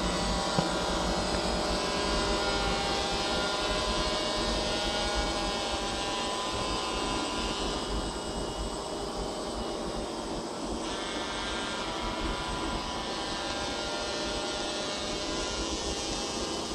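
DJI Phantom quadcopter's motors and propellers whining steadily in flight, a dense hum of many overlapping tones.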